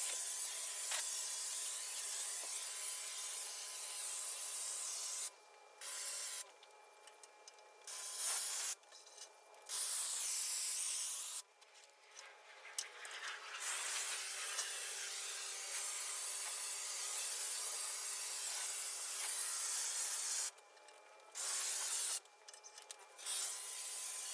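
High-pressure water spray from a pressure washer hitting a flagstone patio as a loud hiss. It starts and stops abruptly several times, in long spells and short bursts.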